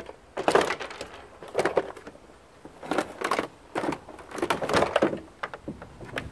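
Plastic case of a foot massager being pried open by hand: a string of short creaking, scraping and knocking noises as the two halves of the shell are pulled apart.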